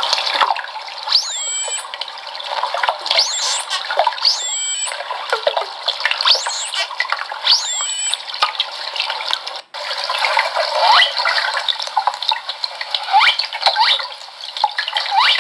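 Recorded whale calls played back through the small speaker of a toy sound module: rising and falling whistles and squeals over a hiss of underwater noise, with almost no bass. The playback cuts out briefly about ten seconds in, where two recordings are joined into one sound file.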